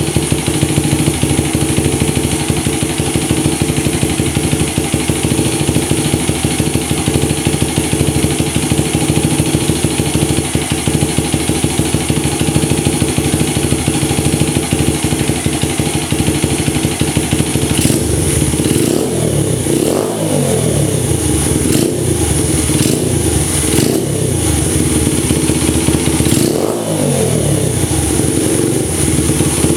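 Honda Ape's single-cylinder four-stroke engine, bored up to 80 cc with a high cam, idling steadily through an OVER aftermarket muffler whose internal silencer baffle has been removed. A little past halfway it is blipped on the throttle several times, the pitch rising and falling back to idle each time.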